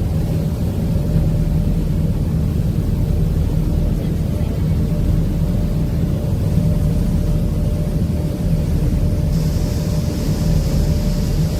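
A fast passenger ferry's engines drone steadily while under way, with a constant low hum. A higher hiss joins about nine seconds in.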